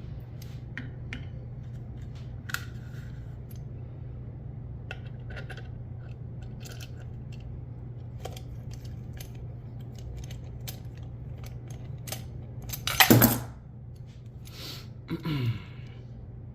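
Small 3D-printed plastic parts being handled and fitted together: scattered light clicks and taps, with a loud clatter about 13 seconds in and a short sound falling in pitch shortly after, over a steady low hum.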